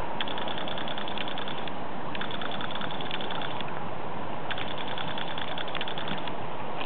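Steady rushing outdoor noise at a steaming geothermal field, broken three times by a rapid, high clicking buzz lasting about a second and a half each time.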